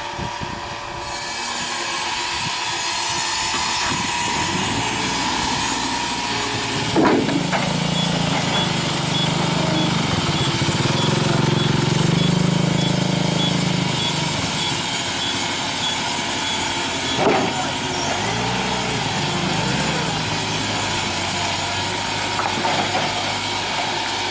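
Wood-sawing machine running and cutting ironwood, a steady dense machine noise with a low hum partway through and two sharp knocks, one about 7 seconds in and one about 17 seconds in.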